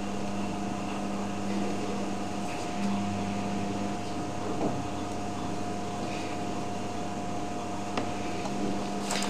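Steady low electrical hum and hiss from the recording setup, with a couple of faint clicks.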